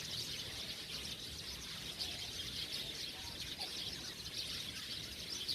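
A large number of small birds chirping all at once in a dense, unbroken chorus of high, quick chirps.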